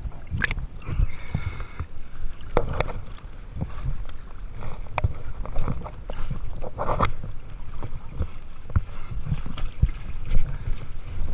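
Water splashing and sloshing around a camera at the waterline, with irregular knocks against a swamped boat's hull and wind buffeting the microphone.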